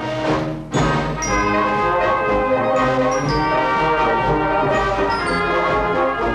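Brass-led orchestral background music, held chords that change every second or so.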